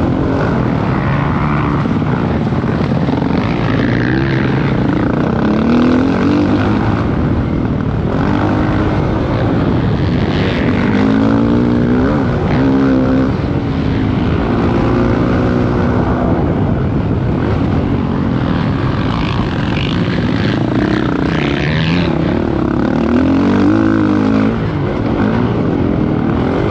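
Dirt bike engine running hard on a motocross track, its pitch rising and falling every second or two as the throttle opens and closes through jumps and corners, with wind rushing over the microphone.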